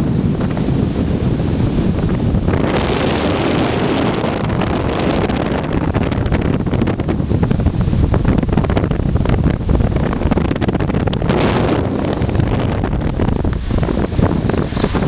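Loud, steady wind buffeting the microphone of a camera riding in a moving car, over the car's road noise.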